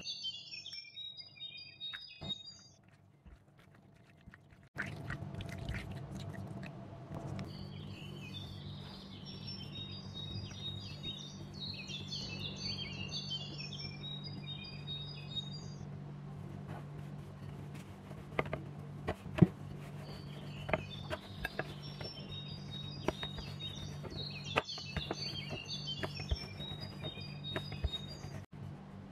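A small bird chirping and twittering in three long spells of quick high notes, over a steady low hum. Scattered light taps and knocks, one sharper knock about two thirds of the way through.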